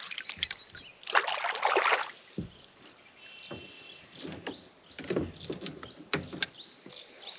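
Plastic kayak and gear being handled: a louder rushing noise for about a second near the start, then scattered knocks and clicks as the paddle and fishing rod are moved about in the cockpit.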